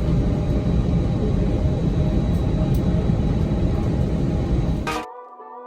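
Steady low rumble of a jet airliner, which cuts off abruptly about five seconds in and gives way to soft ambient music.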